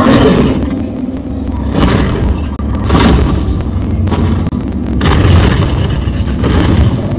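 Movie sound effects of large dinosaurs fighting: a loud, deep rumble with several booming hits a second or two apart.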